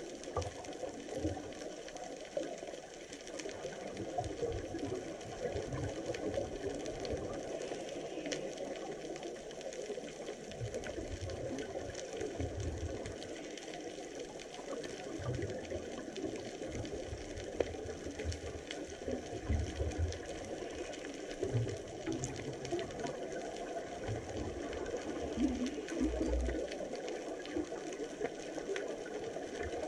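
Underwater ambience picked up by a camera in a waterproof housing: a steady, muffled water noise with a few faint ticks and irregular low thumps.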